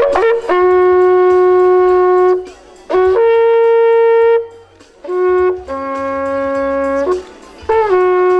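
A long wooden shepherd's horn blown in a slow call of held notes: a middle note, a higher one, a short middle one sliding into a lower one, then the middle note again near the end. Each note opens with a brief upward slide.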